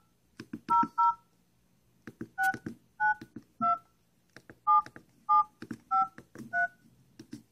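Samsung mobile phone keypad sounding DTMF touch-tones as a toll-free number is dialed: nine short two-note beeps with uneven pauses, each with a soft key-press click. The pairs are the digits 0, 0, 6, 9, 2, 7, 7, 5, 3, so two beeps near the start repeat the same tone, as do two about two-thirds of the way in.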